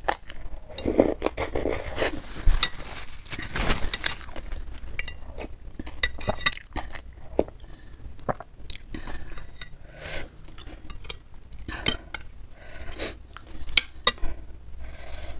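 Metal spoon and fork clinking and scraping against a bowl of bakso meatball soup, many separate clicks, with chewing in between.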